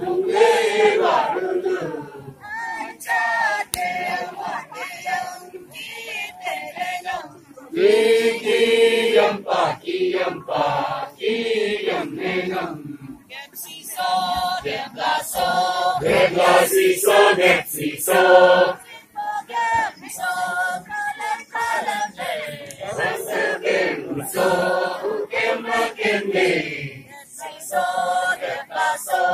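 Men's and women's voices singing a Tangsa Naga dance chant together as a group, in short phrases with brief breaks between them.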